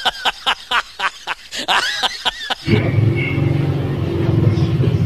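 A rapid, high-pitched cackling laugh, a meme sound effect laid over a laughing-lion clip. It cuts off abruptly about two and a half seconds in, giving way to a steady low rumble of background noise.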